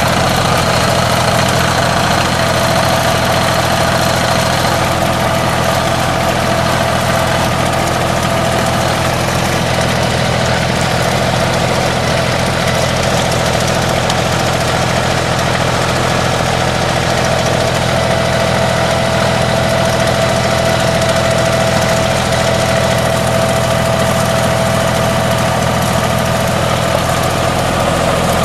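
TYM T233 compact tractor's diesel engine running steadily while its backhoe is worked, with a thin steady higher tone over the engine note.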